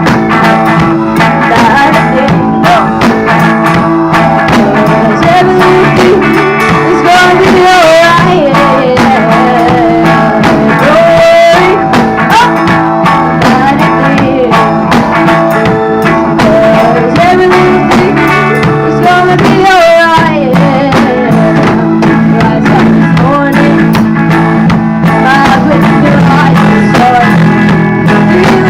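Music with guitar over a steady rhythm, and a wavering melody line on top.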